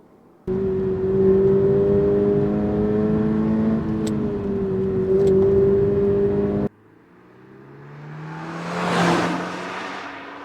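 Toyota GR86's 2.4-litre flat-four boxer engine running hard at a near-steady pitch for about six seconds, then cutting off abruptly. After that the car approaches and passes by, its sound swelling and fading.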